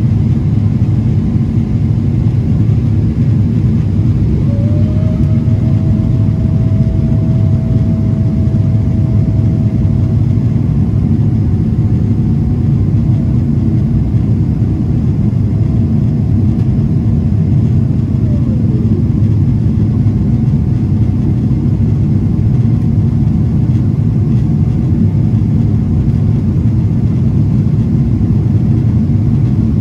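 Steady, loud rumble of a Boeing 777-300ER's GE90 engines and airflow, heard inside the economy cabin. About four seconds in, a thin whine rises, holds steady for about fourteen seconds, then falls away.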